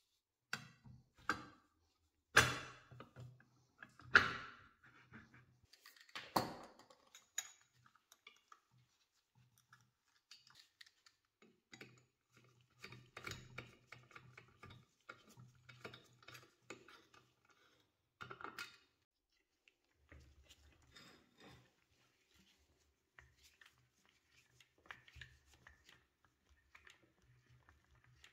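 Metal assembly sounds on an antique Alexanderwerk cast iron bread slicer as its round steel blade is fitted and screwed on: several sharp clanks that ring briefly in the first seconds, then light scattered clicks and rattles, with one more clank about two-thirds of the way through.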